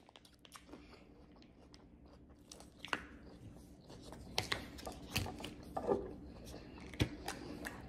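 A person chewing a mouthful of a homemade Chipotle-style rice bowl close to the microphone. Small mouth clicks come sparsely at first and grow more frequent after about three seconds.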